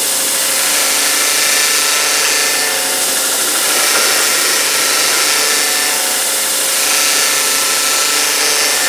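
Homemade belt grinder running with its belt tilted horizontal: a steady motor hum and belt hiss, with the grinding noise rising and falling a few times as a piece of metal is pressed against the abrasive belt.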